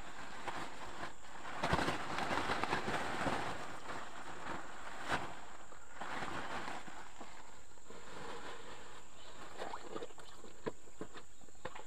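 Irregular squelching, splashing and rustling of hands working through mud and water in a ditch, loudest for about a second and a half starting near two seconds in, with a sharp click near five seconds.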